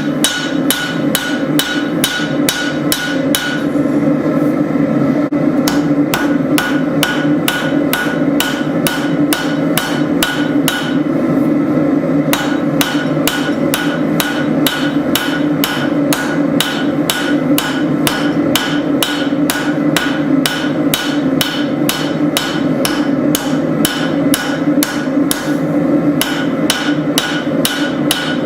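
Hand hammer striking hot spring steel on an anvil as a blade is forged: rapid, even ringing blows about three a second, with two short pauses, over a steady background hum.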